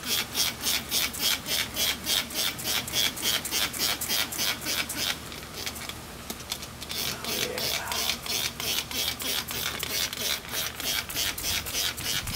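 Hand-held trigger spray bottle being pumped fast, squirting degreaser onto an engine in short hissing sprays about three to four a second, with a pause of about two seconds midway before the spraying resumes.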